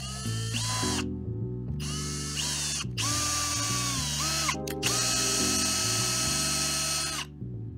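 Makita compact router spindle on a CNC machine milling a clear plastic sheet: a high whine over the hiss of cutting, its pitch sagging and recovering under load. It comes in several stretches that break off abruptly, with background music underneath.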